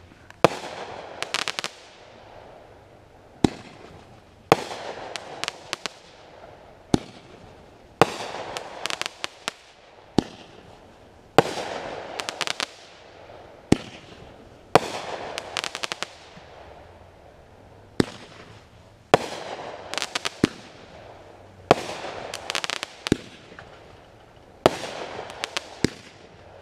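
Aerial firework shells bursting one after another, a sharp bang every one to three seconds, most followed by a second or two of dense crackling.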